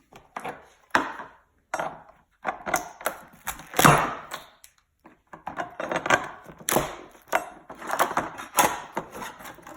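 Mold plug blocks being worked loose and lifted out of a carbon fiber rib mold: a run of irregular knocks, clunks and scrapes, the loudest knock about four seconds in.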